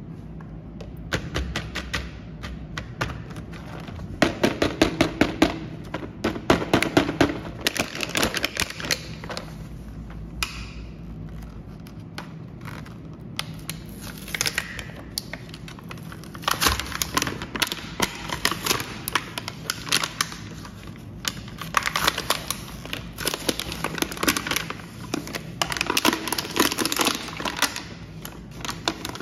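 Clear plastic blister packaging crackling and clicking as a blade cuts along its cardboard backing and the blister is peeled away, tearing the card. It comes in bursts of rapid crackles, with a quieter stretch near the middle.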